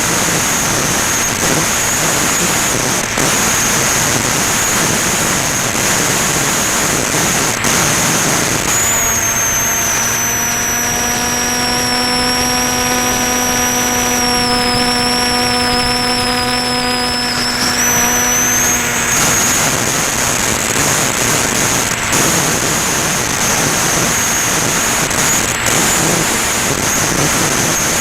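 Onboard sound of a Ranger EX electric FPV plane in flight: a steady rush of propeller and air noise with a high motor whine. For about ten seconds in the middle the whine drops a little lower and wavers, and a steady buzzing hum joins it, then both return to how they were.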